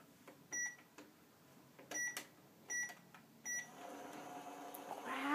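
Four short electronic beeps, like microwave keypad presses, then a hum that builds and is loudest near the end, like a microwave oven starting to run.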